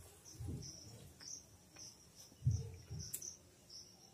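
Insects chirping in a high, evenly repeated pulse, a few chirps a second, with a few low muffled thumps; the loudest comes about two and a half seconds in.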